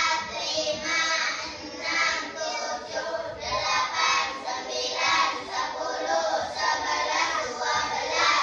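A class of children counting aloud together in Indonesian, chanting the numbers in a sing-song chorus at about one a second.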